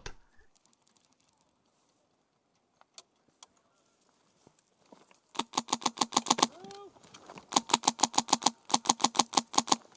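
Near silence for about five seconds, then an airsoft rifle fires three full-auto bursts of about a second each, at roughly ten shots a second. A brief call from a voice falls between the first and second burst.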